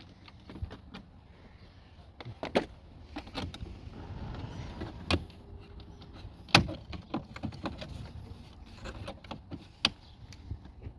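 Scattered sharp clicks and knocks of hand work on the plastic trim around a 2008 Toyota Sienna's sliding-door inside handle, as screws are taken out and the handle bezel is worked loose. The loudest knock comes about six and a half seconds in.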